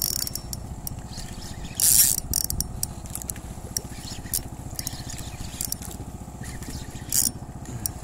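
Blood Magno XT 4500 spinning reel clicking rapidly as it is cranked and gives drag while a fish is fought, with louder bursts about two seconds in and again near the end. A steady low hum runs underneath.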